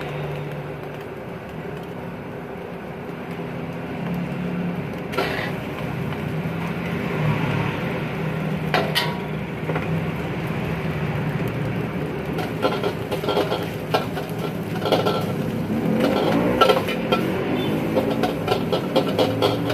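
Gas wok burner running steadily under a steel wok, with a couple of sharp knocks in the first half. From about twelve seconds in, a metal ladle and spatula clank and scrape rapidly against the wok as fried rice is stir-fried.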